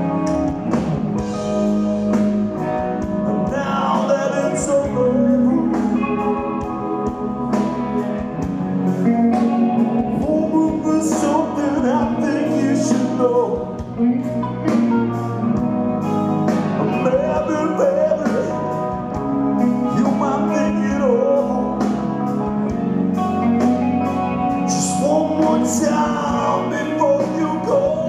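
Live rock band playing a slow blues-rock ballad: electric guitars, bass and drums, with a male lead singer.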